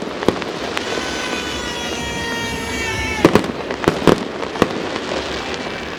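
Fireworks display: a whistling firework holds a long whistle that slides slowly down in pitch for about two seconds and cuts off. A string of sharp bangs and cracks follows.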